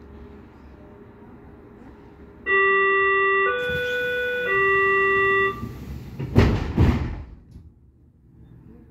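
Door-closing warning of a Berlin S-Bahn class 482 train: three electronic tones of about a second each, low, higher, then low again. Then the doors shut with two heavy thuds.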